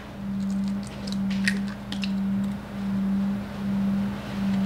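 An egg tapped and cracked against a glass mixing bowl, a few faint clicks about a second in, over a steady low hum that swells and fades gently about once a second.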